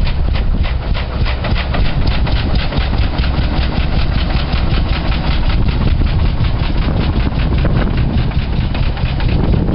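Old tractor engine idling with an even, rapid knocking beat, about six knocks a second, over a steady low rumble.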